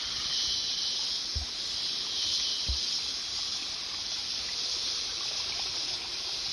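Chorus of cicadas (winter cicadas) singing in the treetops: a steady, high, even drone that doesn't let up. Two short low thumps come through about a second and a half in and near three seconds.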